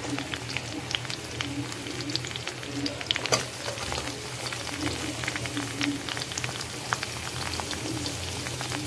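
Freshly added sliced onions sizzling and crackling in hot mustard oil and ghee in a kadhai, with one sharper click a little over three seconds in.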